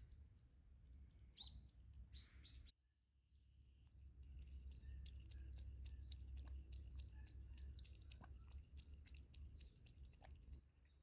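Faint: a bird chirps twice in the first few seconds, then a cat laps water from a plastic basin, a run of soft quick clicks at a few a second.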